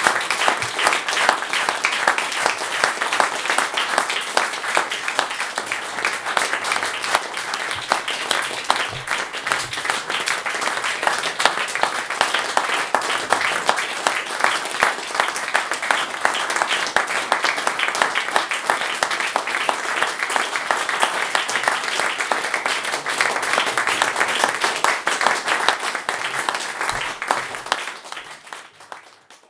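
Small audience applauding, a steady dense patter of many hands clapping that fades out near the end.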